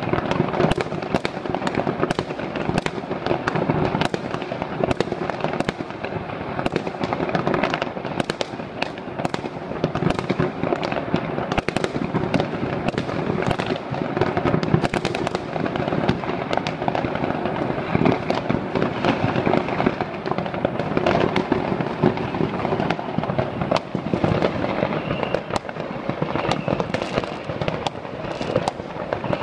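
Many fireworks and firecrackers going off at once across a city: a continuous din of crackling packed with frequent sharp bangs, with no pause.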